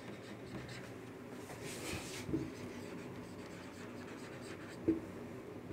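Marker pen writing on a whiteboard: faint scratchy strokes, the clearest about two seconds in, with a light tick or two.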